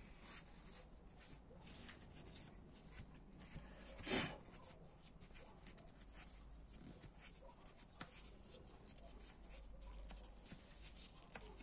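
Faint handling of small metal engine parts on a workbench: light scrapes and clicks, with one louder clack about four seconds in.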